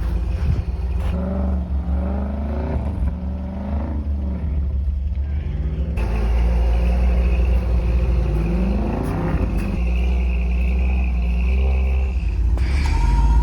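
Four-wheel-drive truck's engine running under load, its pitch rising and falling as it is revved and eased off, over a heavy low rumble. The sound changes abruptly about six seconds in and again near the end.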